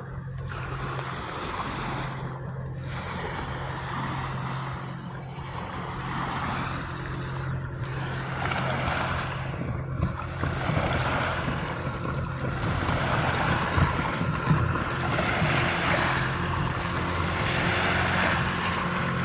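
Ocean surf washing against the beach, growing louder about halfway through, over a steady low engine-like hum.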